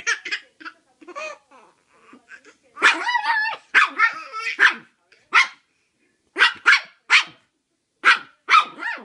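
Chihuahua barking in short, sharp yaps, about a dozen, some in quick pairs, with one longer drawn-out call about three seconds in.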